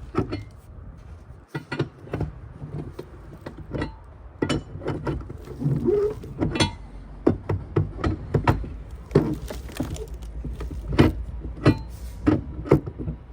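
Irregular knocks and clanks of cargo straps and their hardware being thrown and tightened on a flatbed trailer load, over a steady low rumble.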